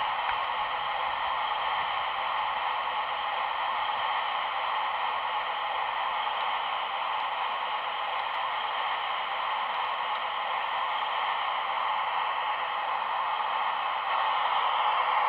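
Radio-controlled model machinery running with a steady whirring hiss, a little louder near the end.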